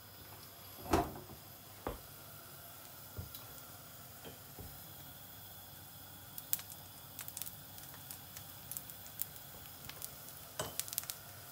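A thin Somali pancake frying in a pan on a gas stove, with a faint steady sizzle. A sharp knock about a second in, then scattered small ticks and crackles through the second half.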